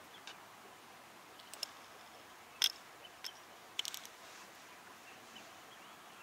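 Faint outdoor ambience: a steady low hiss with a handful of short, sharp clicks, the loudest about two and a half seconds in and a quick run of several near four seconds.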